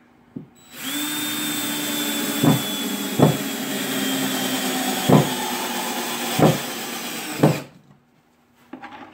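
Cordless DeWalt drill driving a 3-inch wood screw into 2x4 lumber: the motor runs steadily for about seven seconds with a high whine that sags slightly in pitch, with five sharp knocks along the way, then stops.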